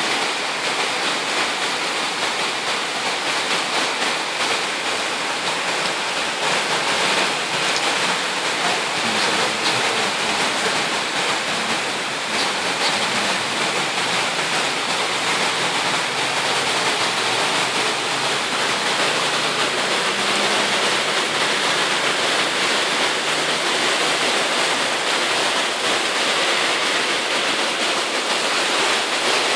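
Very heavy rain pouring down steadily, a dense, even hiss with no let-up.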